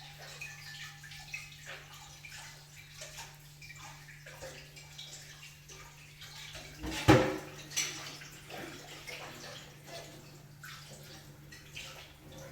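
Banana pancakes frying in a little oil in a pan, with a faint crackle and scattered small clicks, over a steady low hum. A single loud knock comes about seven seconds in.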